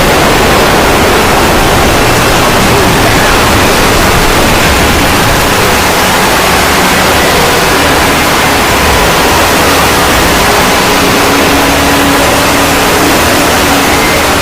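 A deliberately loud sound effect: a steady, very loud wall of hissing noise like static, filling every pitch with no let-up.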